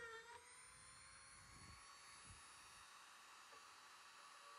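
Small electric drill running while it bores a hole through a wooden board, heard faintly as a steady whine. Its pitch sags briefly at the start as the bit bites into the wood.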